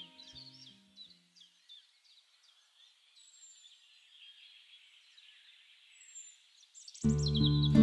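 Small songbirds chirping and twittering faintly, in short high calls. Acoustic guitar music fades out in the first second, and a loud guitar piece starts suddenly near the end.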